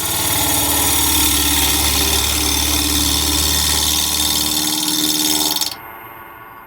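Bowl gouge cutting a square mahogany block spinning on a wood lathe: a loud, steady hiss of the cut over the lathe's hum. Near the end the cut stops suddenly and the lathe runs on more quietly.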